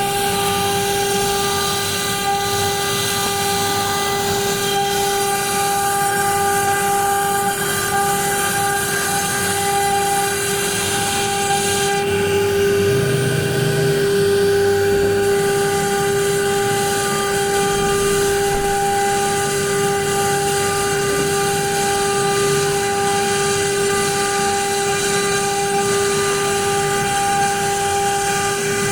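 Homemade CNC machine running: a steady, unchanging high whine with a stack of overtones over a noisy hiss, and a lower hum that shifts in short spells.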